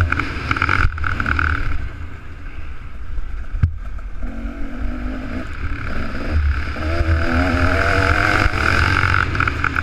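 Two-stroke motocross bike's engine being ridden hard on a dirt track, its note rising and falling with the throttle, easing off about two seconds in and climbing again after about six. A single sharp knock cuts through about three and a half seconds in.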